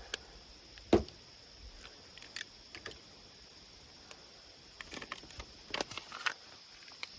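Handling noise of butyl rubber sealing tape and a coax connector being worked by hand: scattered small clicks and crinkles, with one sharper knock about a second in and a cluster of clicks near the end.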